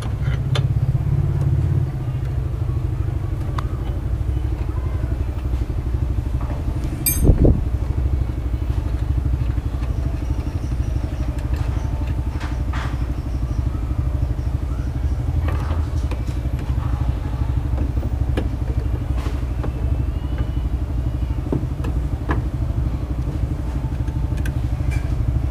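A motor vehicle engine idling with a steady low hum. Small clicks and rattles from plastic parts and a wiring connector being handled sound over it, with one louder knock about seven seconds in.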